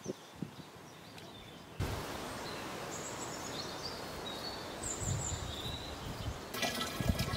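Steady outdoor background noise with birds chirping now and then. About six and a half seconds in, louder splashing water sets in, water being poured.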